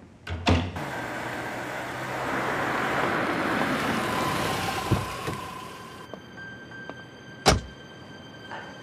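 A car pulling up: its running and tyre noise swells over a few seconds and dies away, then a car door shuts with one sharp knock near the end.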